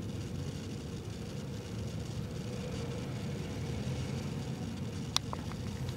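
Steady low background rumble with a faint constant hum, and one sharp click about five seconds in followed by a couple of fainter ticks.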